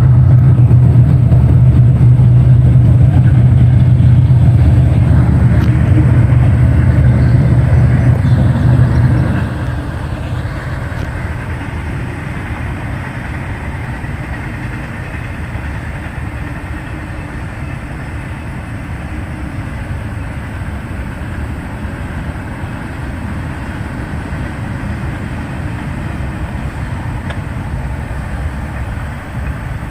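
A freight train passing close by. The lead diesel locomotives' engines drone loudly for about the first nine seconds, then the sound drops suddenly to the lower, steady noise of the freight cars rolling past.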